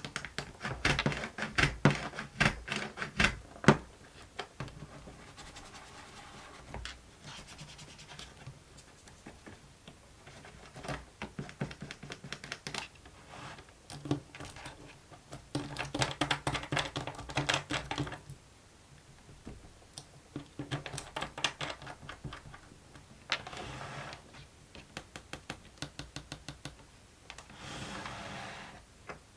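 Plastic fidget board being played with by hand: clusters of quick clicks and taps, with scratching between them.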